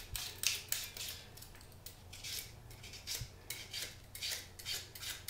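Flat vegetable peeler shaving thin slices off a raw fennel bulb: a run of short, crisp scraping strokes, two or three a second, with a brief lull about a second and a half in.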